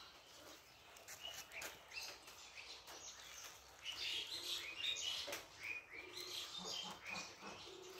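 Small birds chirping over and over, busiest about halfway through, with faint clicks of a kitten chewing a mouse.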